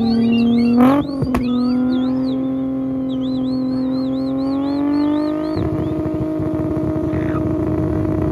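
VR6 engine in a lowered VW Golf Mk1, revved and held high through a twin-tip exhaust: a steady drone with a quick blip about a second in, then slowly climbing in pitch and turning rougher and raspier a little past halfway.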